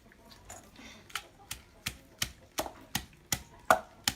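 Pestle pounding herb leaves in a mortar: steady, evenly spaced knocks about three a second, starting about a second in.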